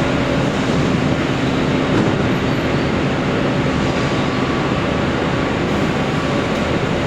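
Plywood factory machinery running steadily: a constant loud mechanical noise with a few faint steady hums in it.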